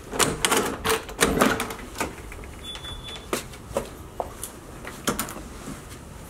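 Door lever handles and lock latches clicking and clacking in quick succession as doors are opened, shut and locked.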